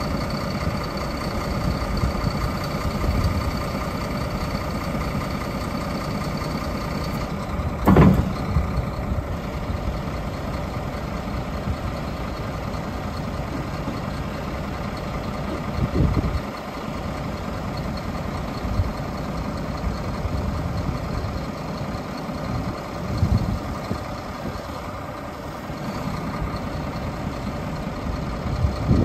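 Scania R400 hooklift truck's diesel engine running while its hydraulics raise the hook arm, with a steady whine over the engine. A loud clunk comes about eight seconds in, with lesser thuds around sixteen and twenty-three seconds.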